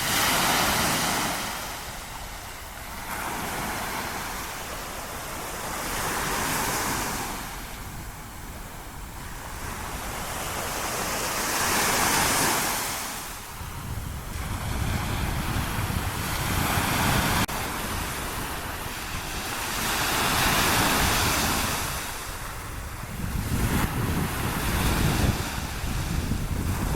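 Small waves breaking and washing up a sandy beach, the hiss swelling and fading every few seconds, with wind gusting on the microphone.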